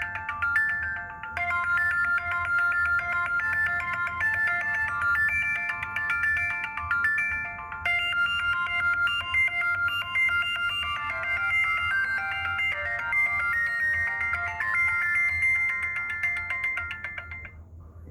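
Motorola Moto C ringtone playing: a melody of quick, high notes that stops shortly before the end.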